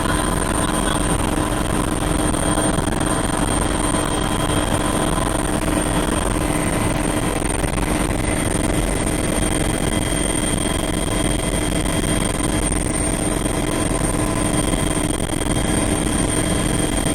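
Rescue helicopter running steadily: a constant rush of rotor and engine noise with several steady whining tones over it.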